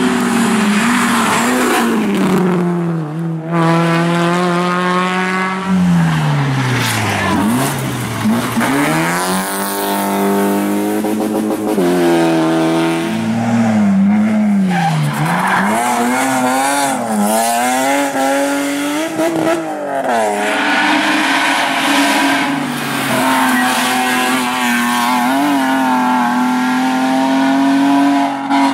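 Competition cars on a closed mountain road, engines revving hard, the note climbing and dropping again and again as they accelerate, shift and lift for the bends, with tyre noise as they slide through the corners.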